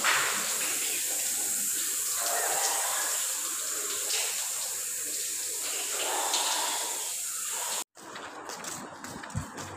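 Water running from taps in a tiled washroom, a steady rushing hiss that cuts off abruptly about eight seconds in.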